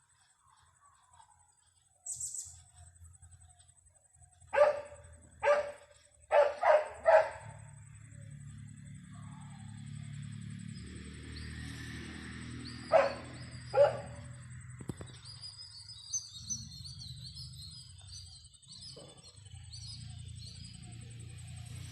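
A dog barking in short separate barks: single barks about 4.5 and 5.5 seconds in, three quick barks around 6.5–7 seconds, and two more around 13–14 seconds. Faint high bird chirps and a steady low rumble run underneath in the second half.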